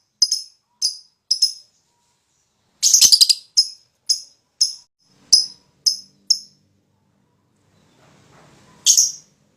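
Lovebird giving short, shrill chirps about two a second, with a quick chattering run about three seconds in. A pause follows, then one last chirp near the end.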